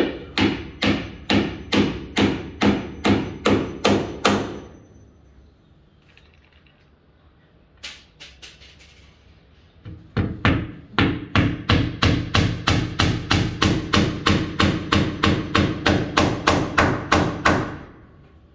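A hammer driving a nail into wood with steady, regular blows: a run of about a dozen strikes, a pause broken by a single blow, then a longer, faster run of about four strikes a second.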